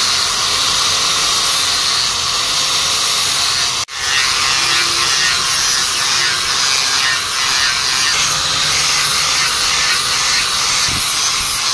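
Electric angle grinder running steadily with its disc grinding the steel blade of a bolo machete. The sound cuts out for an instant about four seconds in, then resumes at full level.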